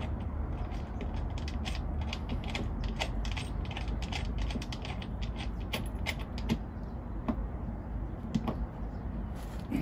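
Quick, irregular small metallic clicks and ticks as a zinc disc anode and its fixing nut are turned by hand onto a threaded stud on a boat hull. The clicks are dense at first and thin out in the second half, over a steady low background rumble.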